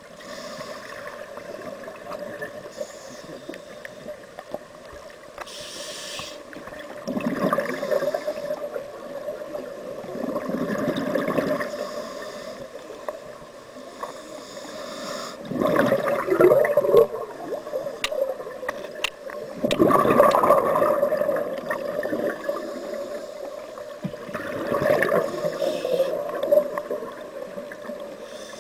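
Underwater sound of a scuba diver breathing through a regulator: exhaled bubbles gurgling in surges every four to five seconds, over a steady hum.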